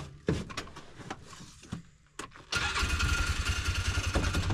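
A few scattered knocks and clicks, then an engine starts a little over halfway through and keeps running with an even, pulsing beat.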